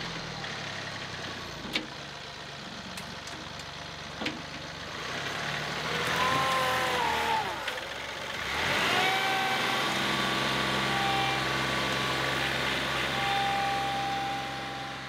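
John Deere 2038R compact tractor's three-cylinder diesel engine working the front loader into a dirt pile, with two sharp clanks a few seconds apart. About halfway through, the engine pitch sags as the bucket digs in under load. It then recovers and holds steady at higher revs while the loaded bucket lifts.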